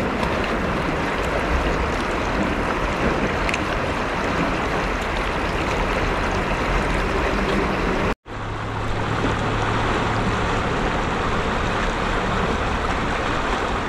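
Swollen, fast-flowing muddy river in flood, its water rushing steadily at the bank's edge. The sound breaks off for an instant about eight seconds in.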